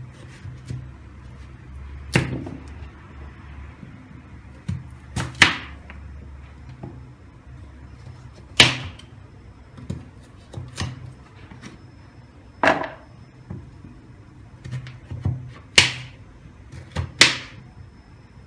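Kitchen knife cutting peeled sweet potato into bite-size pieces on a wooden cutting board: a sharp knock each time the blade goes through and strikes the board, irregularly every second or two.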